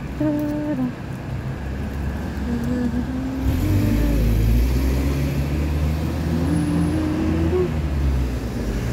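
Road traffic passing close by: a Hong Kong green minibus goes by with a low engine rumble that swells about three and a half seconds in and carries on, followed by a car passing.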